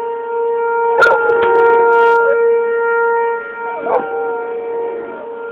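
A siren holds one steady note while a dog howls along with it twice, about a second in and again about four seconds in, each howl starting sharply and sliding down in pitch.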